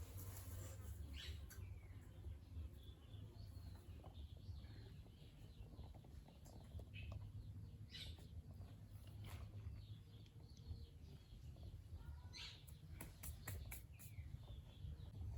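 Faint, scattered chirps of small birds every second or two over a low steady rumble, with a quick run of light clicks near the end.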